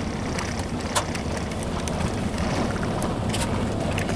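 Steady low rumble of a car driving on a gravel road, heard from inside the cabin, with wind noise. A few sharp ticks come through, about a second in and again a little past three seconds.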